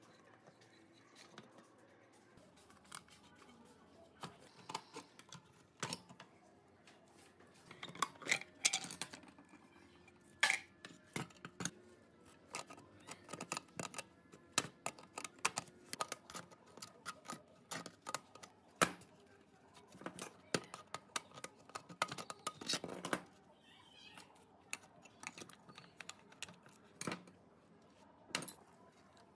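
Irregular metallic clicks, taps and scrapes of pliers and hand tools working on an old spring dial scale as it is taken apart: the rusty steel weighing pan and the pointer needle being gripped and worked loose. The clicks come at uneven intervals, a few of them sharper and louder.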